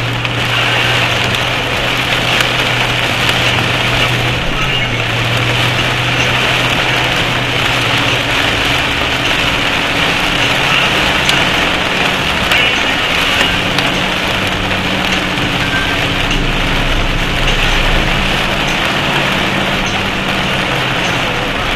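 Heavy rain falling steadily, with a vehicle engine running at a low hum underneath.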